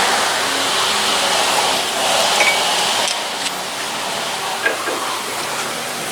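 Steady hiss of workshop background noise, with a few light clicks and taps of metal as brake pads are worked out of a disc brake caliper bracket.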